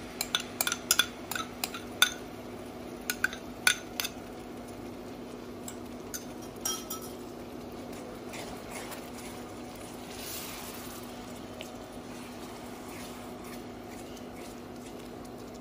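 Hot melted butter with Milo, cocoa powder and sweetened condensed milk bubbling in a frying pan while a silicone spatula stirs it. There are sharp clicks and pops through the first four seconds, a few more later, and a steady low hum underneath.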